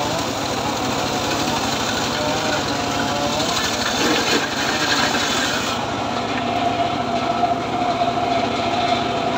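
Homemade engine-driven circular saw ripping a plank of very hard, dry acacia wood, the cutting noise steady over the engine's running. About six seconds in the cut finishes and the blade spins free with a steady whine.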